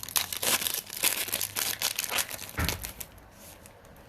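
Foil wrapper of a Panini Optic basketball card pack being torn open and crinkled: a rapid run of crackles, ending in a soft low thump about two and a half seconds in.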